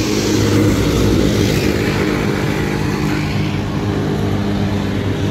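Roadside traffic: a motor vehicle engine running at a steady pitch, over the broad noise of vehicles passing on the road.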